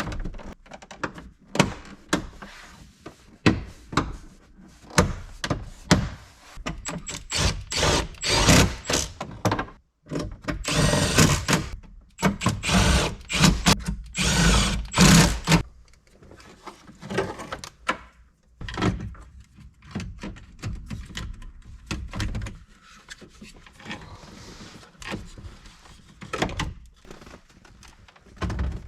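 Cordless drill-driver running in several short bursts, about a third to halfway through, fastening dash parts back in. Clicks and knocks of parts being handled and fitted come throughout.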